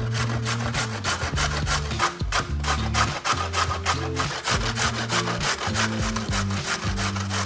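A carrot rasped down a stainless steel box grater in quick, repeated strokes, each stroke a scratchy shredding rasp.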